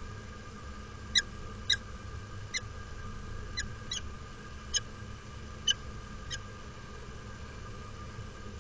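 Peregrine falcon giving about eight short, sharp chipping calls at uneven intervals, over a steady background hum.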